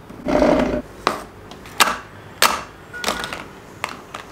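Cosmetic packages being set down one by one on a small table, heard as about four sharp knocks. Just after the start comes a louder, harsh noise lasting about half a second.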